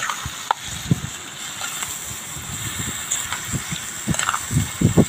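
Octopus simmering and bubbling in its juices in a metal pan over a wood fire, with a few light knocks, and a spoon stirring in the pan near the end.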